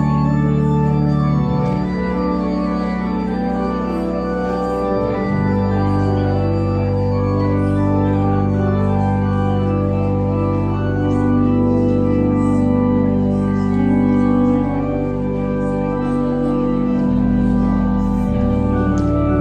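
Organ playing slow, sustained chords over a held bass line whose note changes a few times.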